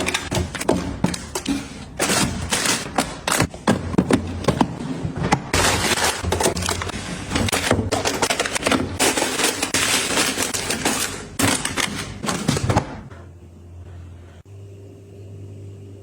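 Rapid clattering, tapping and crinkling as plastic food packages and containers are handled and set down. About three-quarters of the way through it stops, leaving a steady low hum.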